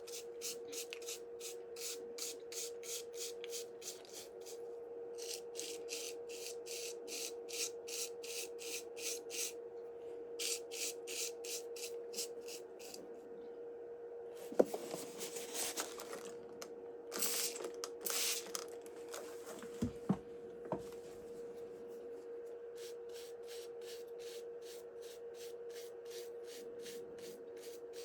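Repeated hand scraping strokes, about four a second, in runs of a few seconds. About halfway through come a few longer scrapes and two or three sharp knocks, all over a steady low electrical hum.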